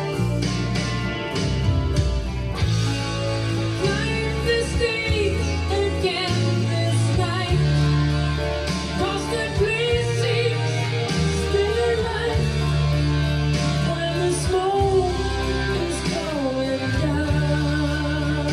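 A song playing back from a cassette on a Tandberg TCD 440A deck: a voice singing over guitar and a steady bass line.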